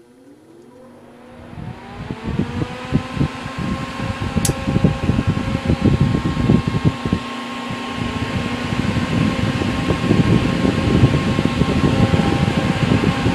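All-metal solder fume extractor fans starting up at full speed: a motor whine rises in pitch over the first few seconds and then holds steady, over a loud, fluttering rush of air that keeps growing. A sharp click comes about four seconds in.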